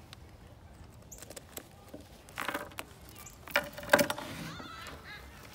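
Metal chain clinking and rattling as it is pulled off a book, with padlocks knocking on a wooden table. The loudest rattles come about two and a half seconds in and again about four seconds in.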